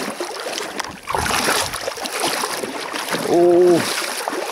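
A person wading through shallow river water over a stony bed, the water sloshing and splashing around the legs. About three seconds in a man lets out a short held vocal sound, the loudest moment.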